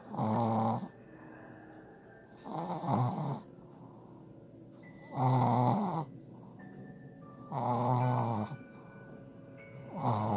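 A puppy snoring in its sleep: a pitched snore about every two and a half seconds, five in all, each under a second long.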